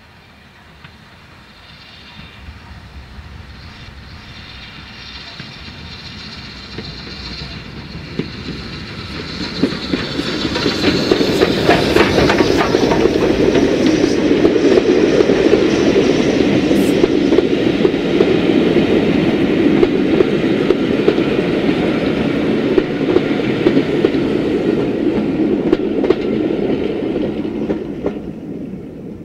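BR Standard Class 4 tank steam locomotive No. 80151 and its coaches approaching and passing close by. The sound builds over about ten seconds, the wheels clatter over the rail joints as the coaches go past, and it fades quickly near the end as the last coach clears.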